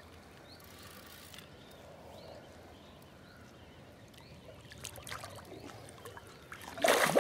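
Water splashing and trickling as a hooked fish thrashes at the surface, with a louder splash near the end.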